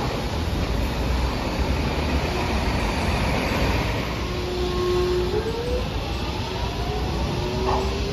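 A Hiroden electric streetcar on its track, with a steady rumble. About halfway through a steady tone is heard, then several rising whines like electric traction motors picking up speed.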